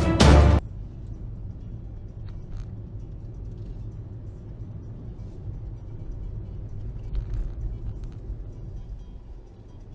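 Music cuts off suddenly within the first second. After it comes the steady low rumble of a car driving, picked up inside the cabin, with a few faint clicks.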